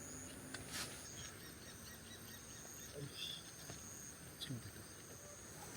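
Faint outdoor night ambience with insects chirping steadily at a high pitch, and a few soft clicks.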